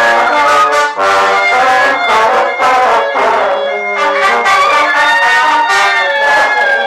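French horn playing a lively tune of quick notes, with a trumpet and other brass sounding along at the same time.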